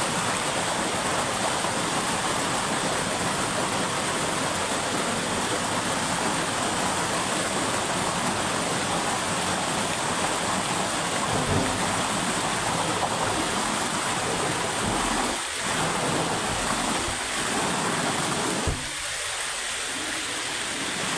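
Water gushing out from under a dam's sluice gate and rushing down a concrete spillway: a steady, loud rush of turbulent water. It goes a little quieter near the end.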